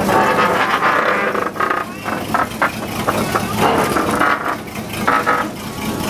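Small narrow-gauge locomotive running along a garden track.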